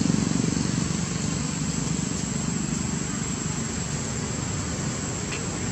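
A low engine hum, like a motor vehicle passing at a distance, growing fainter over the first second or two, over a steady background hiss.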